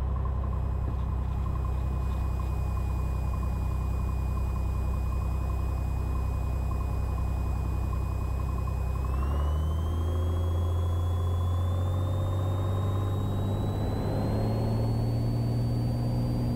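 Cessna 182T's six-cylinder Lycoming IO-540 engine and propeller running steadily at low power, then rising in pitch about nine seconds in and holding higher as the throttle comes up to full power for the takeoff roll.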